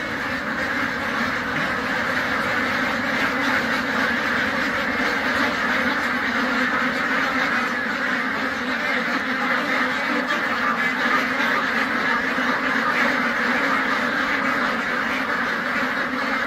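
Thousands of white domestic ducks in a shed quacking all at once, a dense, unbroken chorus that keeps up at an even level.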